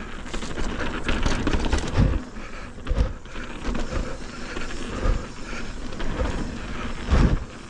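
Mountain bike riding a dirt trail: steady tyre and rattle noise with several heavy low thumps, the loudest near the end.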